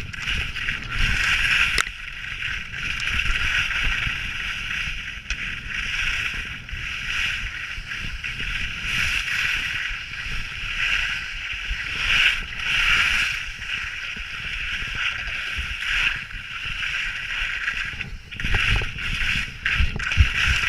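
Skis scraping over icy, hard-packed snow through a run of mogul turns: a hissing scrape that swells and fades with each turn, over a low rumble from wind and bumps.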